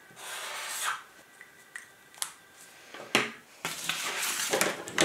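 Permanent marker scratching across paper in short drawing strokes, with a few light ticks. A little after three seconds in comes a knock on the wooden table, the loudest sound, then paper rustling as a sheet is handled.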